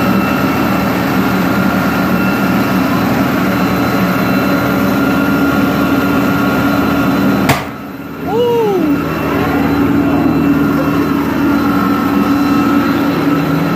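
Fire engine's diesel engine running close by, a loud steady hum with a held whine. About halfway through there is a sharp click, followed by a short falling whine.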